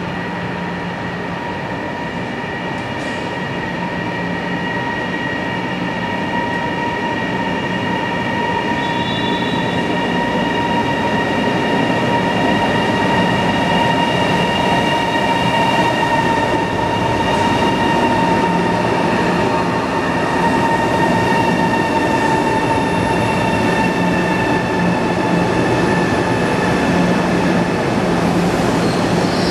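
High-speed electric bullet train running at a station: a steady rolling rumble with a constant electric whine over it, growing louder over roughly the first twelve seconds and then holding level.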